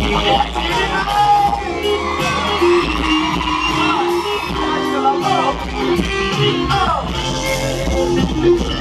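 Live pop band playing, with singing over it and some shouts.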